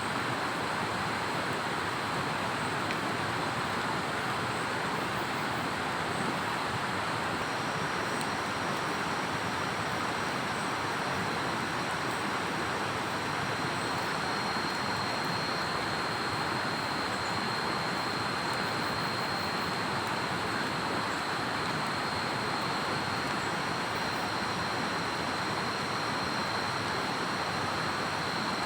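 Heavy rain pouring down steadily, a dense unbroken hiss, over a thin high steady whine that grows stronger about halfway through.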